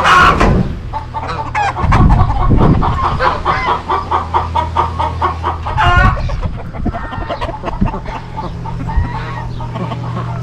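Several chickens clucking continuously, short calls tumbling over one another, with wind rumbling on the microphone in a few gusts.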